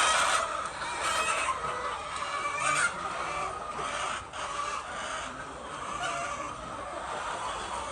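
A flock of laying hens clucking, many birds calling over one another, loudest in the first few seconds.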